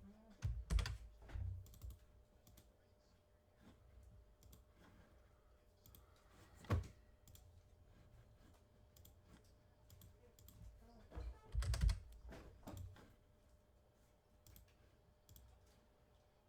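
Scattered clicks of typing on a computer keyboard, with a few louder knocks about a second in, near the middle and around twelve seconds.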